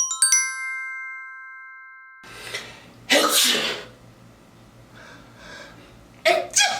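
A bright chime rings at the start and fades away. Then a person draws a breath and sneezes loudly about three seconds in, followed near the end by two short sneezes in quick succession.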